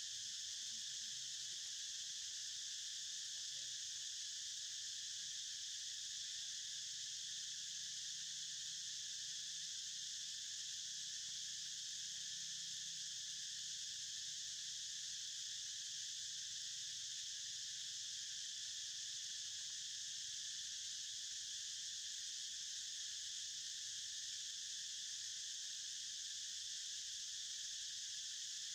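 Insects shrilling in a steady, high-pitched chorus.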